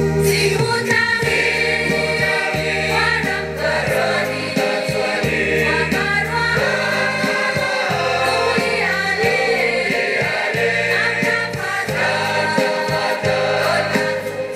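Church choir singing a gospel song over instrumental backing with a steady bass line and a light regular beat.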